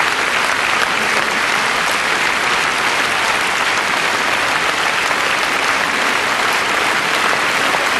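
A large audience applauding, a steady, dense clapping that neither swells nor fades.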